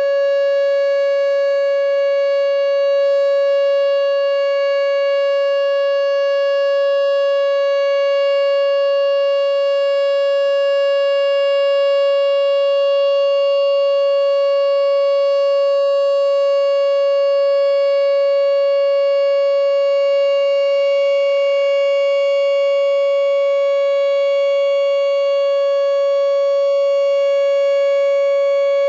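Whelen WPS 2910 electronic outdoor warning siren sounding its full Alert signal during a siren test: one loud, steady tone held at a single pitch without rising or falling.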